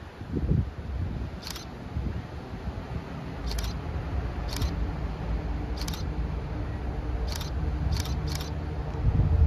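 Low rumble and steady engine hum of an approaching diesel train, slowly growing louder, with seven sharp camera-shutter clicks at irregular intervals.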